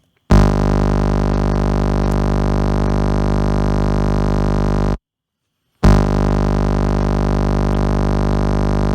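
Loud electronic buzz on a phone recording, twice: a steady, unchanging tone that holds for about four and a half seconds, stops, and comes back under a second later for about three seconds before cutting off abruptly. It is the kind of buzz that a phone malfunction puts on a recording.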